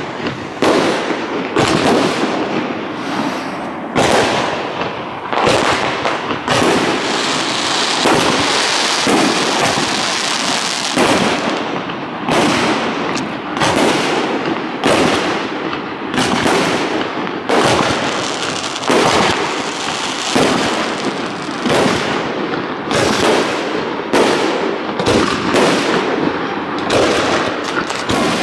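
Aerial firework shells bursting one after another in a fireworks display, sharp booms coming about once or twice a second, with their echoes filling the gaps between them.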